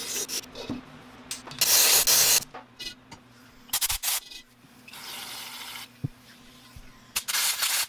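Compressed air hissing from a plastic air blow gun in about four separate blasts, blowing out a motorcycle engine's aluminium crankcase half around its bearings. The blasts about a second and a half in and near the end are loud, and the one in the middle is quieter and longer.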